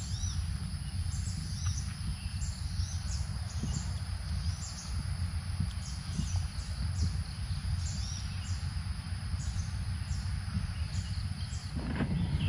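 Birds chirping in short, repeated high calls over a steady high insect drone and a low rumble of wind on the microphone; a louder rustling starts near the end.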